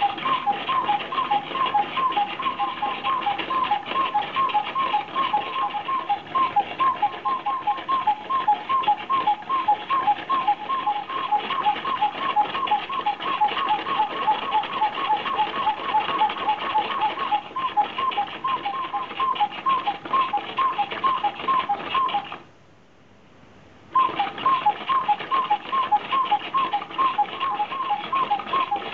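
Mechanical automaton running: a fast, steady stream of clicks with rapid chirping squeaks on two alternating notes. It stops for about a second and a half near the end, then starts up again.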